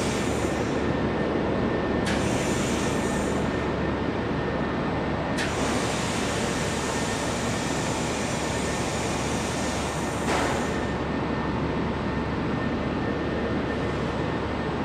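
Handheld fiber laser welding machine running with a steady hum while welding aluminium. A high hiss cuts in and out abruptly as the trigger is held: briefly about two seconds in, then for about five seconds from about five seconds in.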